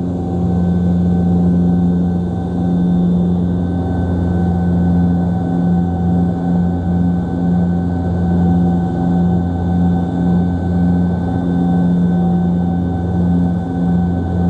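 Rolls-Royce Dart turboprop engines and propellers of a Hawker Siddeley HS 748 heard from inside the cabin, a loud steady drone with a slow, even pulsing in level over the second half.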